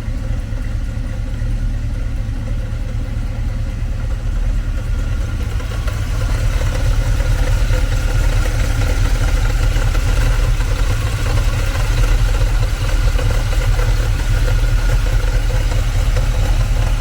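1965 Chevrolet C-30 dually truck's engine running, getting louder about six seconds in and holding there.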